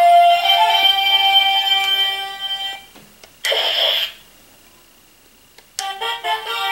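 Legacy Dragon Dagger toy's speaker playing its electronic flute-like melody, a sequence of held tones stepping in pitch, triggered by pressing the mouthpiece against the chin. A short noisy sound effect comes around the middle, and the melody starts again about six seconds in.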